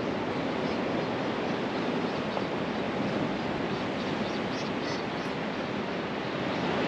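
Steady wash of surf and wind: sea waves breaking against a rocky shore.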